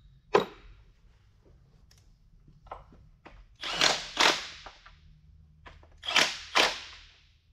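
Air-powered hand tool run in short bursts, two pairs about two seconds apart, running down the bolts that hold the auxiliary section to an Eaton transmission case. A single sharp clack comes just before, near the start.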